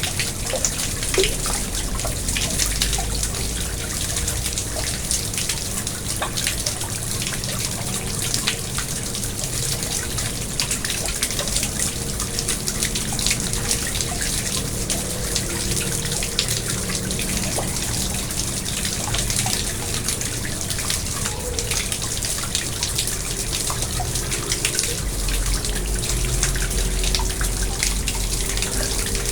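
Garden pond water running and splashing steadily, with many small drips and splashes.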